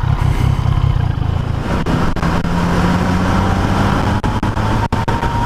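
Yamaha XSR900's three-cylinder engine running as the motorcycle pulls away and gets under way, its note settling into a steady pitch about two seconds in, with wind and road noise.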